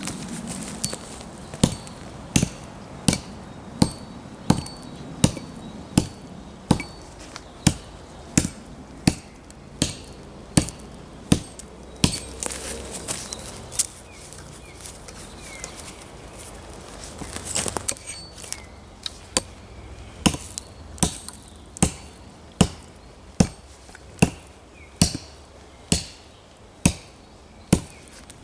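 Repeated sharp strikes of a hand tool on wood, evenly paced at about four every three seconds, with a faint metallic ring after some and a short break about halfway through.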